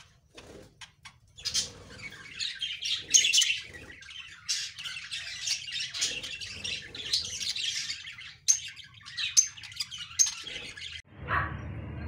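Budgerigars chattering: a busy run of rapid, high chirps and warbles that starts about a second and a half in, after a few light clicks, and keeps going almost to the end.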